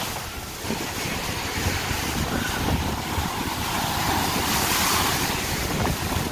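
Ocean surf washing onto the beach, with wind buffeting the microphone; the wash swells louder a little past the middle.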